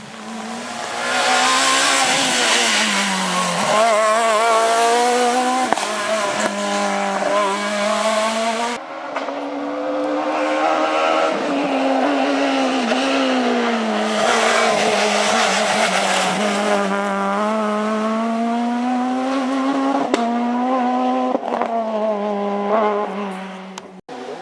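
Renault Clio S1600 rally car's four-cylinder engine revving hard, its pitch climbing and dropping again and again through the gears. An abrupt cut about nine seconds in switches to another run of the same sound.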